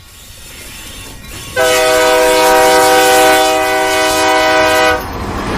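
A train horn sounds one long, steady blast of about three and a half seconds, starting about a second and a half in and cutting off abruptly near the end. A train's running noise builds up before it.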